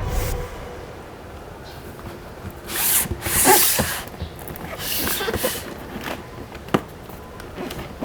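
Packaging being handled: two loud rustling, tearing swishes of a second or less, then a few sharp clicks near the end.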